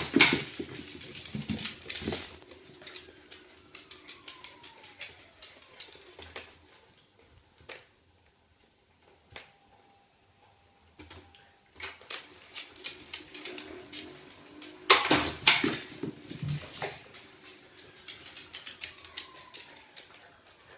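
iFetch automatic ball launcher: its motor hums with a thin high whine as it spins up, then throws a ball with a loud smack, right at the start and again about 15 seconds in. After each launch the ball clatters and bounces on the wooden floor, with many sharp clicks, and a whine falls away. It goes near silent for a few seconds in the middle.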